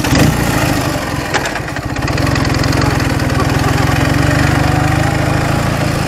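Ural motorcycle's air-cooled flat-twin engine catching right at the start, then running steadily at idle with an even low pulse.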